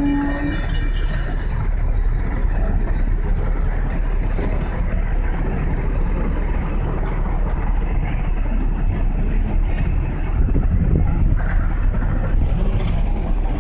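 A train rolling through a grade crossing: a steady rumble of wheels on the rail. A held pitched tone cuts off about half a second in.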